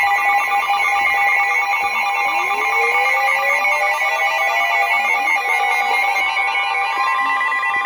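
Emergency Alert System attention signal: a loud, steady electronic two-tone alarm. From about two seconds in, a quieter tone glides slowly upward underneath it.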